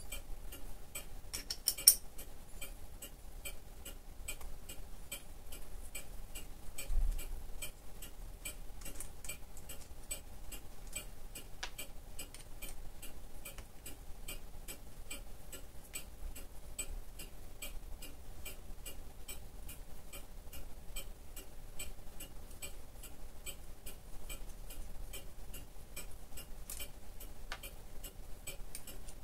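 Mechanical clock ticking steadily, about two ticks a second, over a faint steady hum. A single low thump comes about seven seconds in.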